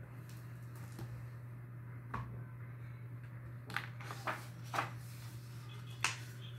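A picture book being opened and its page turned by hand: a few short paper rustles and taps, spread through, over a low steady hum.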